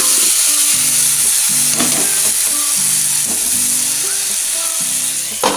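Chopped onions and tomatoes sizzling steadily in hot oil in a frying pan while a silicone spatula stirs them, with a sharper knock near the end.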